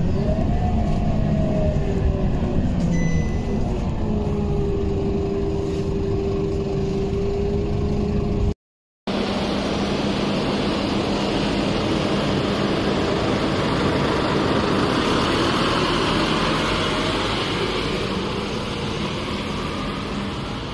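Inside a Scania K230UB city bus on the move: its engine drone with a whine that rises, dips, then holds on a steady pitch. After a cut, a bus running at a roadside stop with a steady hum under passing traffic noise that swells for a few seconds and eases off near the end.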